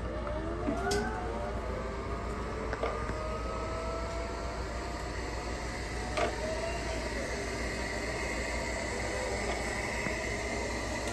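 Roomba robot vacuum running: a steady motor whir with whines that rise in pitch near the start and a few short sharp clicks.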